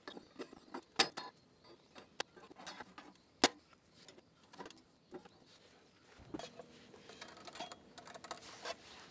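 Scattered light clicks and knocks of hard objects being handled, with two louder knocks about one second and three and a half seconds in.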